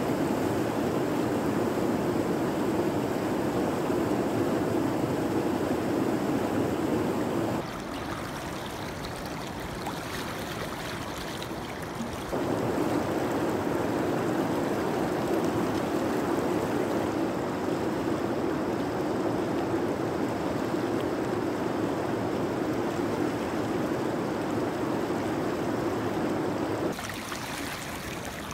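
Steady rush of river water flowing over a shallow riffle. It turns abruptly quieter for a few seconds about a third of the way in, and again near the end.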